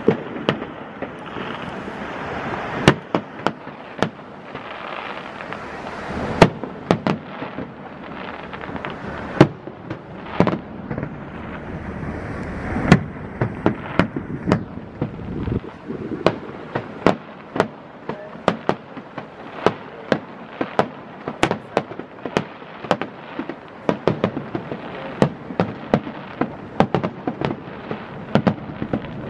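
Aerial firework shells bursting in a long series of sharp bangs, spaced a second or more apart at first and coming faster, about one or two a second, from around halfway.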